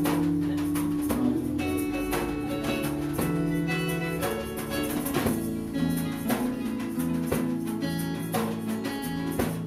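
Instrumental passage of a small live acoustic band: an acoustic guitar picked with a plectrum over held notes, with light percussion striking at a steady pulse.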